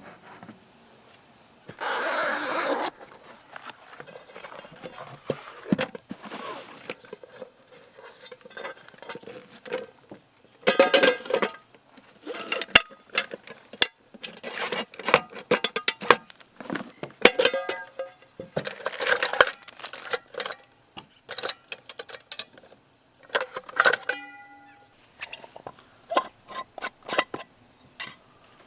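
Dishes and utensils clinking and clattering in a long run of small knocks and clicks, with a short hiss about two seconds in.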